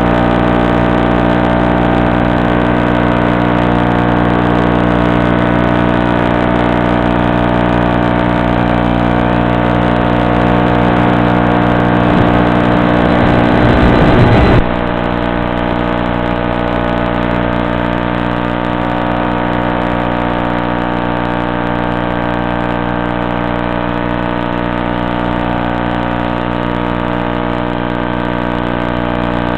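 Electric motor and propeller of a Stratosurfer RC plane running at a steady cruise throttle: a constant hum of several steady tones. About halfway through it swells briefly, then drops a little in level and loses its hiss.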